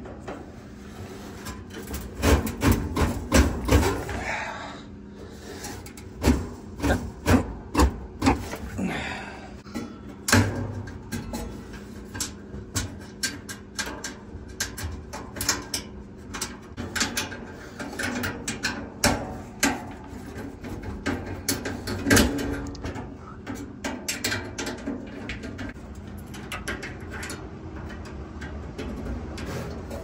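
Handling noise from fitting a replacement dryer heating element: its sheet-metal housing clicking, knocking and scraping against the dryer's sheet-metal cabinet while wire connectors are pushed onto its terminals. Irregular clicks and knocks, in loudest clusters a couple of seconds in and again about six to nine seconds in.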